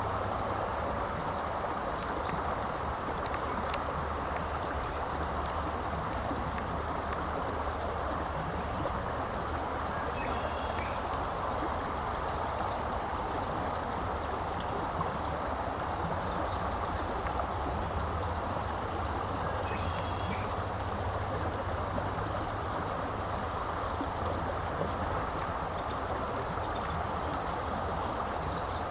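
Steady rush of flowing water, with a low rumble underneath and a few faint, short high chirps here and there.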